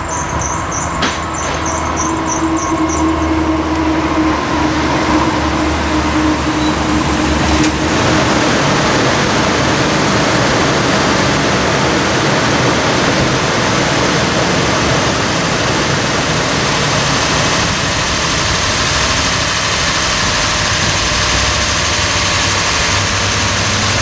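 Toyota 2UZ-FE 4.7-litre V8 running steadily and loudly, burning off raw fuel that had flooded its cylinders during a crank-no-start. A rapid high chirping sits over it for the first three seconds, and a steady hum fades out about eight seconds in.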